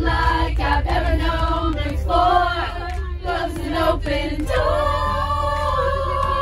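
A group of teenage voices singing together a cappella, with a long held note in the second half. A steady low rumble from the school bus runs underneath.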